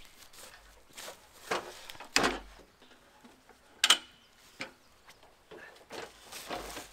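Metal clicks and clanks of a folding saw stand being opened out: its legs are swung out and locked into place, making a handful of separate knocks and ratchet-like clicks, the loudest about two and four seconds in.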